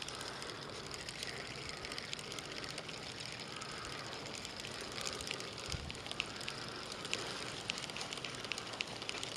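Okuma spinning reel being cranked to wind in line, with light, irregular clicking from the reel over a steady outdoor hiss.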